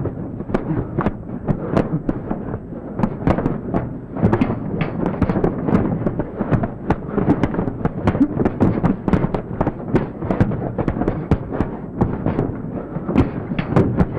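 Dense, irregular crackling and clattering from the film's soundtrack: many sharp clicks in quick, uneven succession over a continuous low rumble, with no steady beat or tune.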